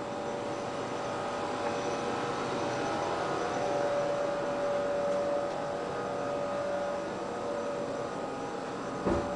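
A steady hum with a few held tones over an even hiss, with a couple of short knocks near the end.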